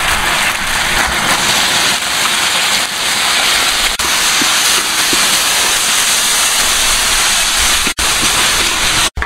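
A loud, steady hiss, like rushing water or spitting fat, that breaks off for an instant twice near the end.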